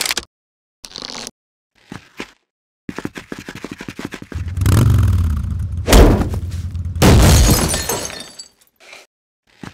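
Sound effects laid over a stop-motion Lego minifigure scene. A few short clicks come first, then a rattling run. From about four and a half seconds in there is a loud crashing, shattering effect over a deep rumble, with a sharp hit near the middle, fading out before the end.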